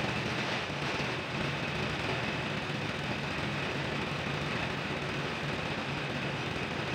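Gravity-feed compressed-air paint spray gun hissing steadily as it sprays paint, over the low, steady hum of an air compressor.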